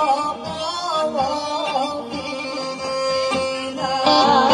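Live Rhodope folk music: a woman sings over a band of kaba gaida bagpipes holding a steady drone, with a tapan drum keeping the beat. The bagpipes swell louder about four seconds in.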